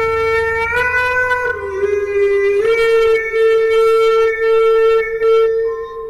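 Music: a slow melody of long held notes in a reedy wind-instrument tone, each note lasting a second or more, with a dip to a lower note about a second and a half in and back up about a second later.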